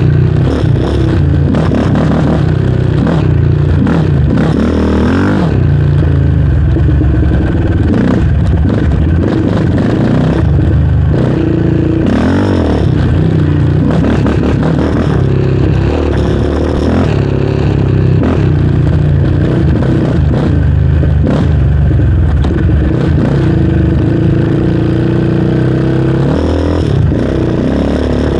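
Yamaha Raptor 700R sport quad's single-cylinder four-stroke engine running under way on a trail. Its pitch rises and falls again and again as the throttle is opened and eased off.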